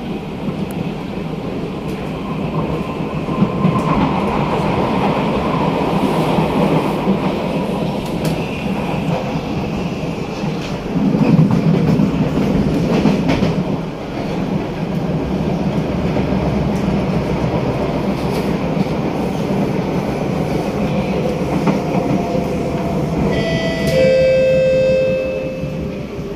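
SMRT C151A electric train running at speed, heard from inside the carriage: a steady rumble of wheels and running gear on the track. Near the end the motor whine falls in pitch as the train slows, and a brief, loud, high-pitched tone sounds over it.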